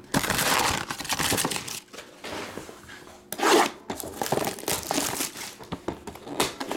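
A sealed trading-card hobby box being opened by hand: its plastic wrap crinkling and tearing, and the cardboard lid tearing open. The longest burst of rustling comes in the first two seconds, with a short loud tear about halfway through and smaller crackles after.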